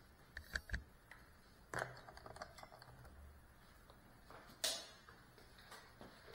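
Faint scattered clicks and knocks: a quick cluster of three under a second in, a few light ticks around two seconds, and a sharper knock just before five seconds.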